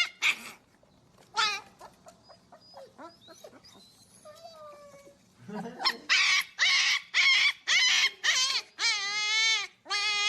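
A young animal crying: a few faint cries at first, then a quick run of loud, high-pitched cries in the second half, one of them longer and wavering in pitch.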